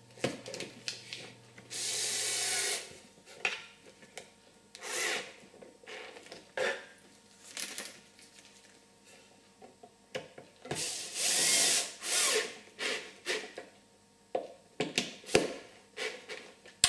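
Cordless drill-driver driving wood screws into a wooden lamp pedestal, running in separate short spurts of about a second or less, with a few sharp clicks near the end.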